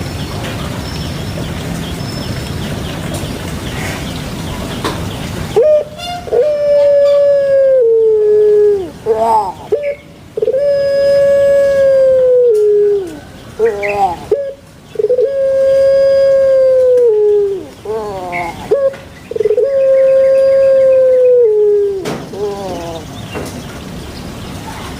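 Puter pelung dove (Streptopelia risoria) cooing: four long calls, each about two seconds and dropping in pitch at the end, with short quick notes between them. A steady noisy hiss fills the first five seconds before the calls begin.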